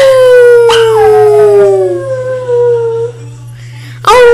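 Small chihuahua-type dog howling: long, drawn-out howls that slowly fall in pitch, breaking off about three seconds in, with a new howl starting near the end.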